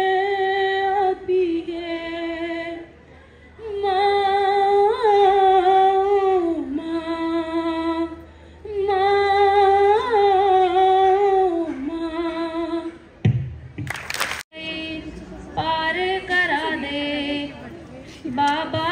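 A young singer sings unaccompanied into a microphone, long wordless held notes in phrases of two or three seconds each. About thirteen seconds in, a short loud burst of noise, then a girl's voice takes up the singing.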